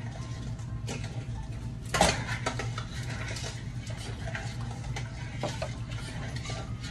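A utensil clinking and scraping against a stainless steel pot as flour is stirred into the liquid for a roux, with a louder knock about two seconds in. A steady low hum runs underneath.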